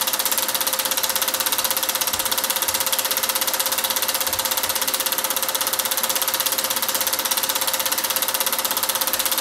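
Film projector running: a fast, even mechanical clatter from the film-advance mechanism, with a steady hum under it.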